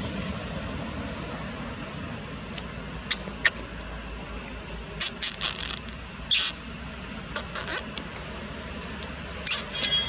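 Forest ambience: a steady background hiss with scattered short, very high-pitched chirps, bunched in quick groups about three, five, seven and a half and nine and a half seconds in.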